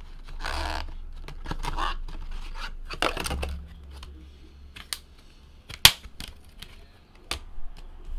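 Trading-card packaging handled and torn open by hand: rustling and tearing in three short stretches, then a few sharp clicks, the loudest about six seconds in.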